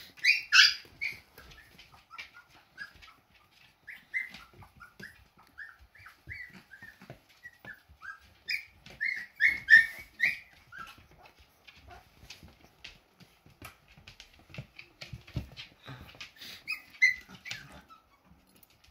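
Young husky puppies squeaking and whimpering in many short, high calls, loudest in clusters about half a second in, around ten seconds and near the end, as hungry pups chasing their mother to nurse. Light clicks of small claws on a wooden floor run underneath.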